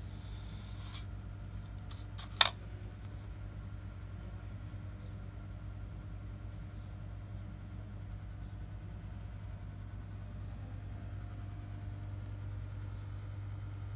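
A steady low mechanical hum, with a short brushing sound of a grooming brush through long cat fur at the start and a single sharp click about two and a half seconds in.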